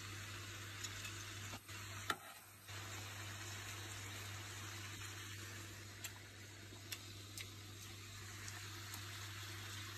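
Chopped duck meat and greens sizzling in a large aluminium pot over a fire: a steady hiss with a few sharp pops.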